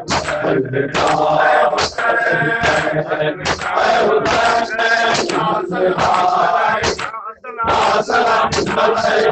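A group of men chanting a noha in unison, led by a male reciter, over rhythmic matam: hands slapping chests in a steady beat about twice a second. The beating and chanting pause briefly about seven seconds in.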